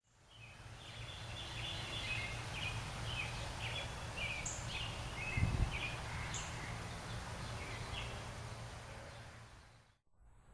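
Birds chirping against a steady low outdoor rumble. About halfway through comes one brief, low, dull boom: the distant flashover of a faulted power distribution line arcing a couple of miles away.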